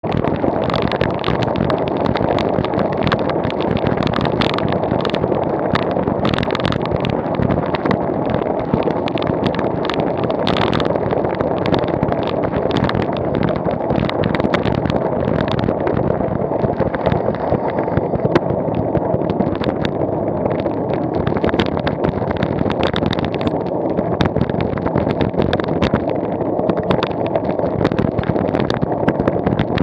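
Steady wind and road noise on the microphone of a camera moving along a road, with a constant low rumble and irregular crackling gusts.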